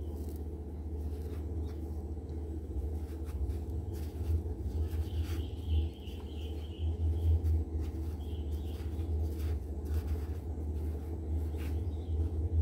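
Soft rustling and light clicks from hands stuffing polyester fiberfill into a crocheted amigurumi head, over a steady low hum. A faint high chirp comes about five seconds in.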